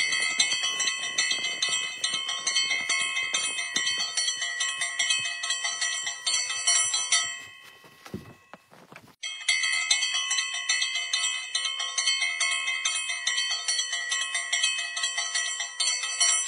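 Small bells jingling continuously in quick, dense strokes, with many ringing tones sounding at once. The jingling breaks off for about two seconds midway, with a soft thump in the gap, then starts again abruptly and runs on.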